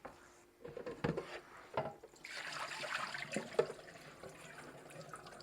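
A few knocks and clatter, then running or splashing water about two seconds in that eases to a fainter wash, with a couple more sharp clicks in between.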